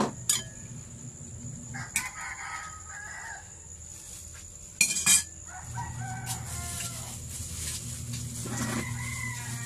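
A rooster crowing several times, with a few sharp knocks like dishes being handled, over a steady low hum.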